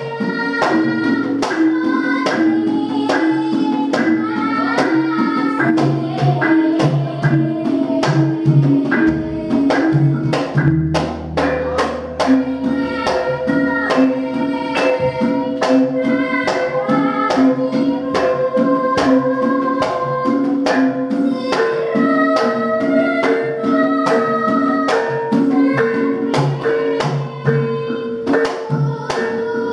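Javanese gamelan playing a sampak accompaniment with a steady pulse of struck metal and drum strokes, under a young female voice singing a palaran tembang in long, held, ornamented lines. A deep low stroke rings out about nine seconds in and again near the end.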